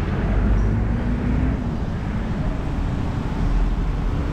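Street traffic: cars driving past close by, engines running with a steady low rumble, one engine note rising slightly about a second in.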